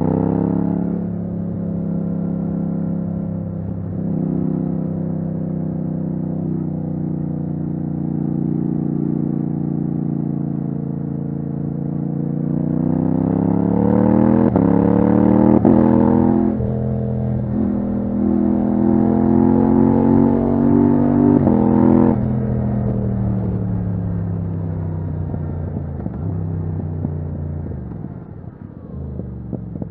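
Yamaha MT-07's parallel-twin engine through a straight titanium Akrapovic exhaust with no dB killer, heard from the rider's seat. The note falls off the throttle, runs fairly steady, then revs up hard about midway with a brief break in the note as it shifts up a gear. It pulls again and drops suddenly as the throttle closes, winding down on the overrun with some irregular crackle near the end.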